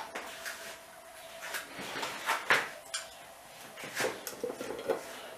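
Light clicks and clinks of kitchenware being handled on a counter, about a dozen scattered knocks. Near the end a hand takes hold of a glass salt jar.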